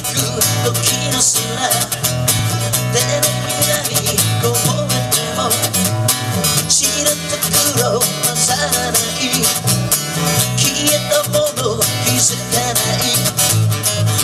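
A song played live by an acoustic guitar and an electric bass, with a man singing over them.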